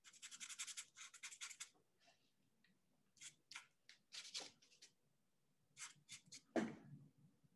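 Faint scratching of a paintbrush's bristles dragged across paper in short strokes for thin tree branches: a quick run of strokes at the start, then single strokes in small groups, with one louder, lower scrape near the end.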